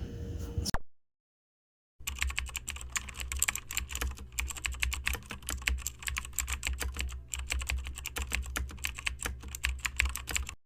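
Rapid, irregular clicking like typing or button presses over a steady low hum. The clicking starts about two seconds in after a break of dead silence and cuts off abruptly.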